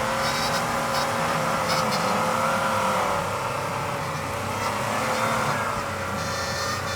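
Four-wheel-drive vehicle's engine running under load, its pitch wavering gently up and down with the throttle, with a few short hissing bursts near the start and near the end.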